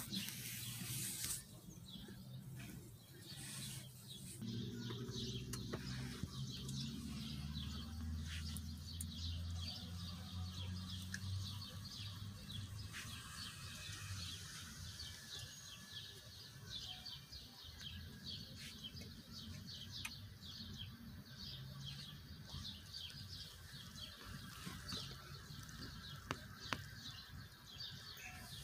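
Faint outdoor street ambience: birds chirping repeatedly over a low rumble of passing traffic. The rumble is louder in the first half, and the chirping is densest in the second half.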